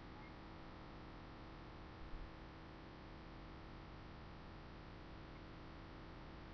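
Faint steady hiss and electrical hum, with one soft low knock about two seconds in as a chocolate package is set down on a table top.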